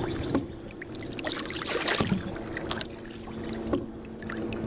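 Water splashing and trickling around a small paddle boat, with scattered knocks and clicks on the hull and gear over a steady low hum.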